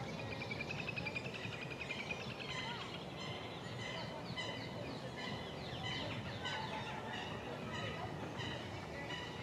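A little grebe's rapid whinnying trill for the first two and a half seconds or so, then a run of short, high chirping bird calls, over steady low background noise.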